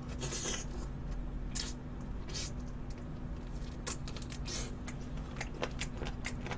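Close-miked mouth sounds of a person eating with his fingers: short wet smacks, squelches and chewing, coming irregularly a few at a time.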